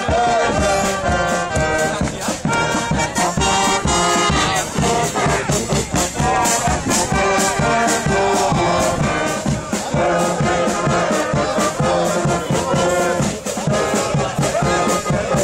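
Small brass band of trumpets, trombone and tuba playing a tune with a steady beat.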